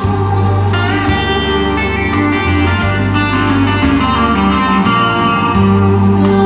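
Recorded guitar music with a steady bass line, played back through Dali Ikon 5 mk2 hi-fi loudspeakers.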